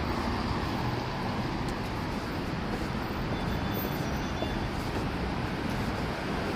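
Steady city street traffic noise: cars running on a wet road, heard as an even wash of rumble and hiss.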